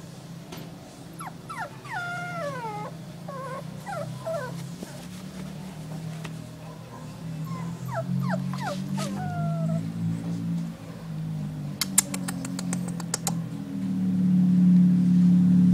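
Terrier-cross puppy whimpering: high, falling whines in two bouts, one starting about a second in and another around eight seconds. Underneath is a steady low hum that grows louder toward the end, and there is a quick run of clicks a few seconds before the end.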